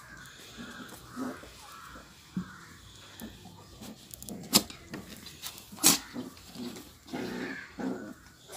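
Lhasa apso puppies playing, making short, low vocal sounds in scattered spurts. Two sharp knocks, the loudest sounds, come a little over a second apart around the middle.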